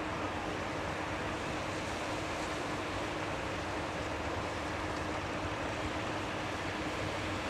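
Steady rushing wind noise with a faint steady hum underneath.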